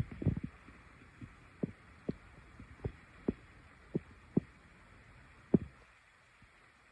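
A series of short, low, muffled thumps at irregular intervals, several close together at the start and then one every half second to a second, the loudest about five and a half seconds in.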